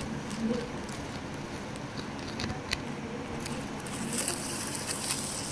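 Faint scraping and a few light clicks of a plastic toy elephant being moved over a concrete floor.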